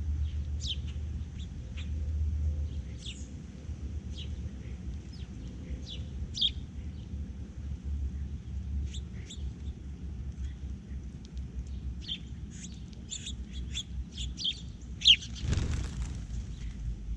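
Small songbirds chirping, short high calls scattered throughout and busier in the last few seconds, over a steady low rumble. A brief, loud rushing sound about fifteen seconds in.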